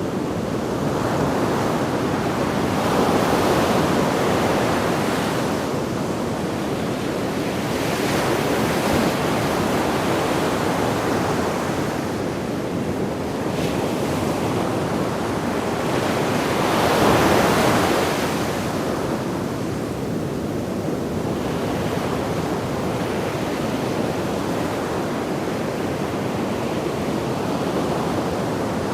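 Sea waves breaking on a beach: a continuous wash of surf that swells and falls back every few seconds, the loudest wave breaking a little past halfway through.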